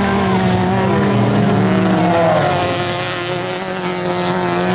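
Several autocross cars racing on a dirt track, their engines revving up and down over one another as they accelerate and change gear. The sound eases a little about three seconds in, then builds again.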